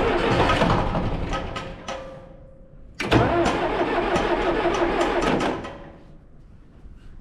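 Diesel engine of a John Deere 710 backhoe cranked over twice on starting fluid, each time running rough for a couple of seconds and then dying away. It is hard to start because the injection pump is not getting fuel to the injectors, possibly from being airlocked.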